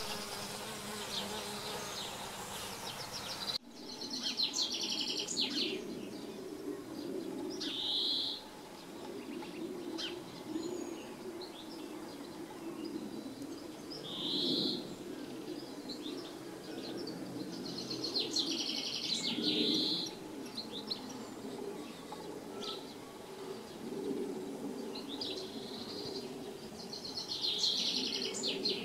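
Wild bees buzzing around flowers in a steady, wavering drone, while a bird sings short, high trilled phrases every few seconds.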